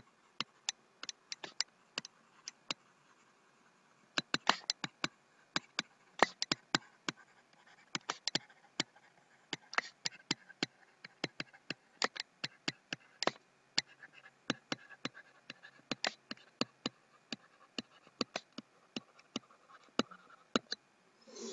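Stylus tapping and scratching on a tablet's writing surface during handwriting: a quick, irregular run of sharp ticks, with a few short scratchy pen strokes between them.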